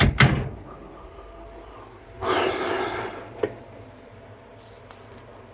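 A couple of sharp knocks at the start, then a person breathing out heavily for about a second, followed by a single click.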